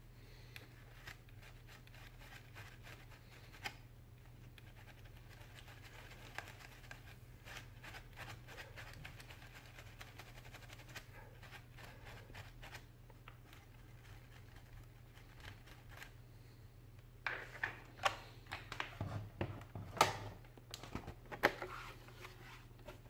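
A cloth wiping and rubbing over the inside of an opened laptop's plastic chassis and motherboard, a soft scratchy sound with faint ticks. From about 17 seconds in, a run of louder handling knocks and clicks, the loudest sounds here, over a steady low hum.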